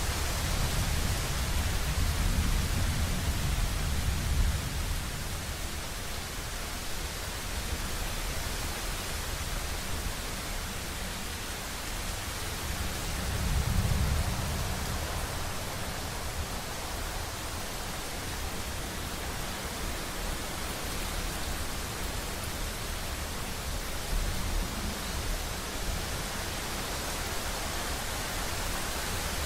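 Steady rainstorm hiss, with low rumbles of thunder swelling at the start, about halfway through and again near the end.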